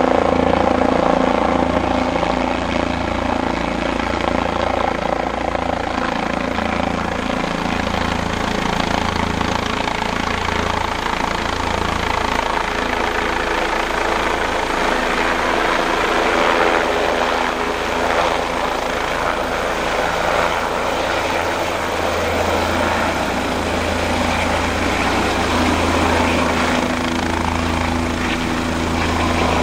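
Bell 407GXi helicopter running close by: the steady noise of its single turboshaft engine and rotor. A pulsing low throb is heard for the first dozen seconds and again near the end.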